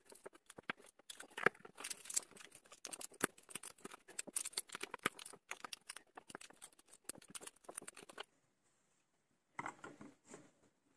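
LEGO plastic bricks clicking and rattling as they are handled and pressed together: a dense run of small clicks and taps, a pause of about a second near the end, then a few more clicks.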